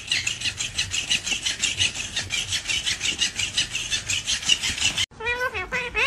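A black-headed caique wrestling a plush toy on carpet, making a rapid, even rasping of about six strokes a second. Near the end a sharp cut brings in a blue Indian ringneck parakeet starting to talk in a high, gliding voice.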